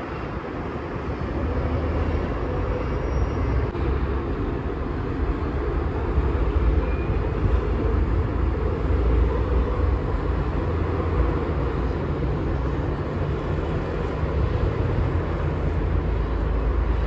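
Wind and distant city road traffic: a steady wash of noise with a strong low rumble.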